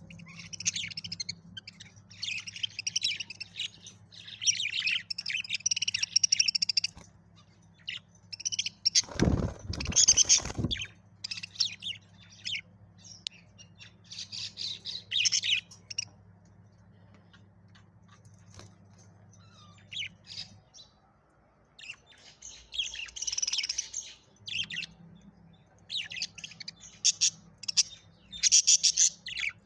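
Pet budgerigars chirping and chattering in bouts of quick high twitters with pauses between. A loud noisy burst comes about nine seconds in and lasts about two seconds. A low steady hum runs underneath and stops about twenty seconds in.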